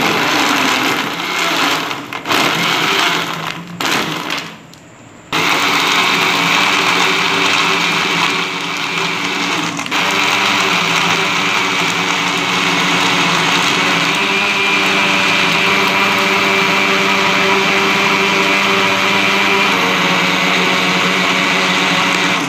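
Electric countertop blender running on peeled peaches, ice and water: it starts in a few short bursts, stops for under a second about five seconds in, then runs steadily for about seventeen seconds before cutting off at the end.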